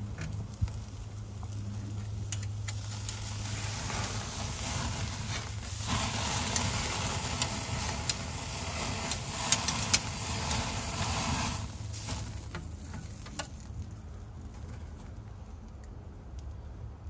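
Ribeye steak sizzling over oak embers, with a few sharp crackles. The sizzle swells for several seconds midway, then dies down.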